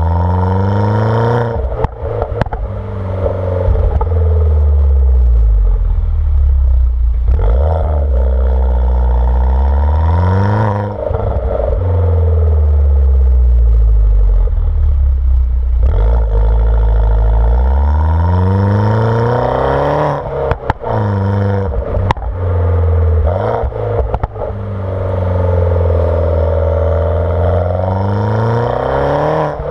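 R56 Mini Cooper S's turbocharged 1.6-litre N14 four-cylinder on JCW tuning software, breathing through a JCW exhaust with the catalytic converter removed. It accelerates in several pulls, its pitch rising through each one and dropping back. Sharp pops and crackles come from the exhaust on the overrun each time the throttle is lifted.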